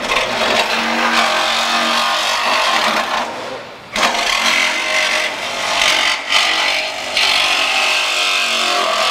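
Ingersoll Rand 12V cordless compact reciprocating saw cutting through a car's sheet-metal body panel, the blade rasping steadily. The cut stops for under a second about three seconds in, then the saw starts again and keeps cutting.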